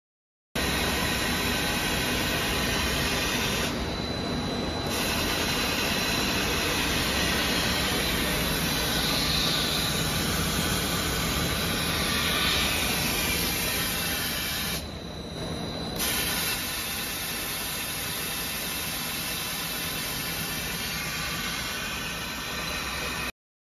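Automatic single-shaft roll-cutting machine running, a steady hissing machine noise with a faint high whine through it, dipping briefly twice.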